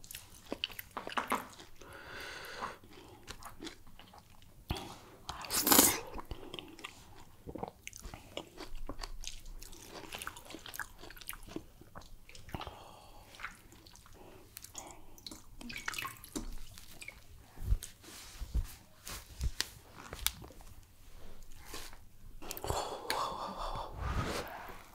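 Close-miked eating by hand: fingers squishing and scooping through thick egusi soup in a glass dish, mixed with mouth chewing sounds. Short wet clicks and smacks come throughout, the loudest about six seconds in.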